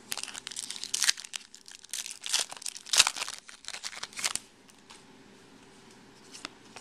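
Foil wrapper of a 2010 Topps Chrome baseball card pack crinkling and tearing as it is ripped open by hand, loudest about three seconds in, for the first four seconds or so. A few faint clicks of the cards being handled follow near the end.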